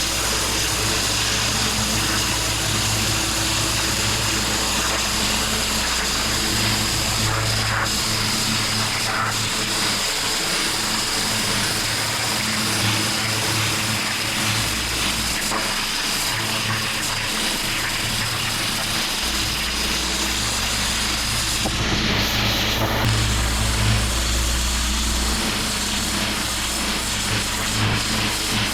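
Petrol pressure washer running steadily: a constant engine drone under the hiss of the high-pressure water jet on block paving.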